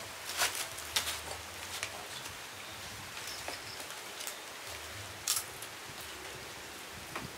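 Scattered rustles and a few sharp clicks from paper and foil food wrappers being handled as a group eats grilled catfish by hand, over a steady hiss.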